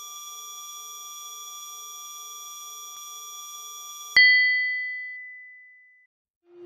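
Synthesized loading-bar sound effect: a steady electronic tone with a faint pulse, cut off about four seconds in by a sharp, bright ding that rings out for about two seconds as the bar reaches 100.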